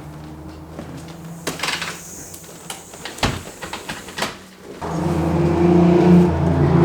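A few sharp knocks and clicks over a low hum, then from about five seconds in a motor vehicle engine running loudly and steadily.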